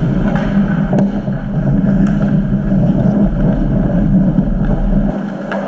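Ice hockey rink during play, picked up by a camera on the goal: a steady, loud low hum and rumble, with a few sharp clacks from sticks and puck about a second in and again near the end.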